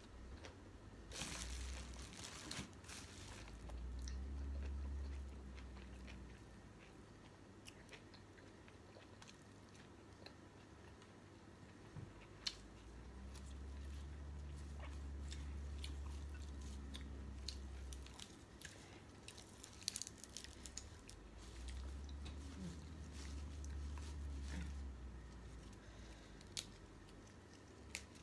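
Close-up chewing and crunching of a mouthful of food with fresh raw greens, in several spells, with small clicks and rustles of leaves being picked over.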